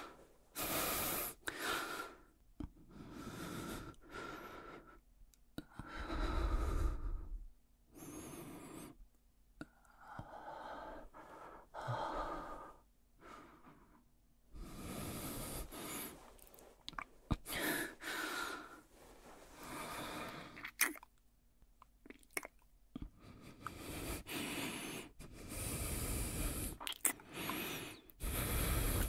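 A man breathing close to the microphone, audible breaths in and out every second or two, uneven in length, with a few short clicks between them.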